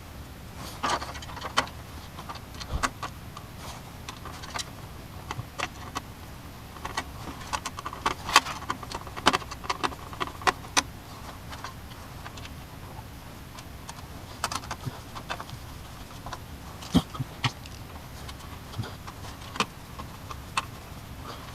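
Irregular clicks, taps and small rattles of hands handling computer parts, with metal and plastic knocking together as case fans are fitted into a PC case.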